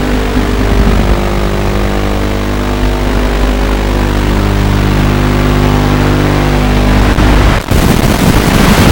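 Steady buzz made of many fixed tones from a QAV210 FPV racing quadcopter in flight, heard through its analog video link. About three quarters of the way through, the sound drops out for an instant and turns to harsh static hiss as the video signal breaks up.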